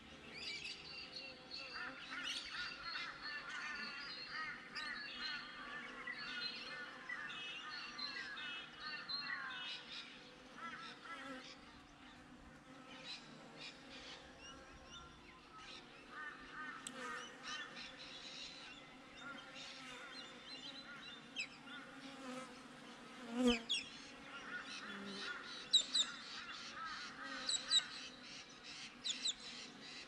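Honeybees buzzing around the hive entrance, a steady hum, with birds chirping and calling throughout. A sharp knock about two-thirds of the way through is the loudest sound.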